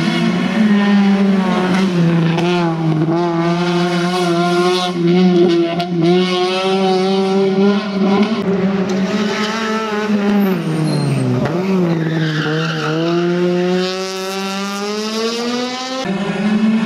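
Honda Civic Type-R rally car's engine running at high revs under hard driving, its pitch wavering up and down. About eleven seconds in the revs drop sharply, then climb again.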